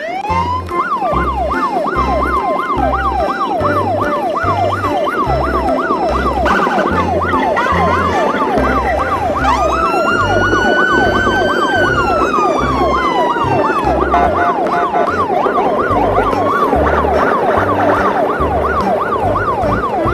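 Emergency-vehicle siren in a fast yelp, its pitch sweeping up and down several times a second. About ten seconds in it breaks into a slower wail that rises, holds and falls, then goes back to the yelp. A low, uneven thumping beat runs underneath.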